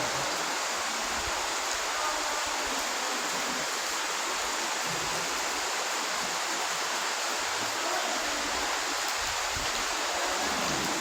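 Steady rush of flowing water, like a stream or small waterfall.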